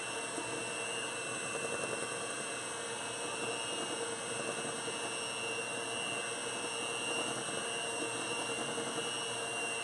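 Electric hand mixer running at a steady speed, its beaters whisking eggs and melted coconut oil in a stainless steel bowl. A steady motor hum with a high, constant whine.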